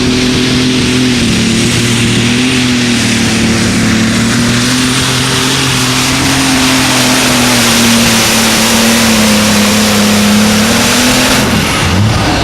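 Light Super Stock pulling tractor's turbocharged engine running hard under full load down the track, with a dense roar and a thin high turbo whistle. The engine note holds fairly steady, then falls away near the end as the pull ends.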